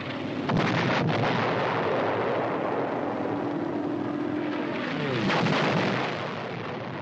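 Artillery shells landing: a sudden blast about half a second in, then a long rumble, and a whistle falling in pitch into a second blast about five seconds in.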